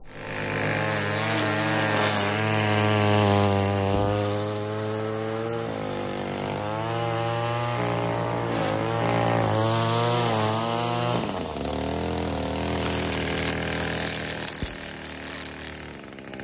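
Two-stroke engine of an Echo string trimmer running, its pitch rising and falling several times as the throttle is worked. About two-thirds of the way through it drops to a lower, steadier idle.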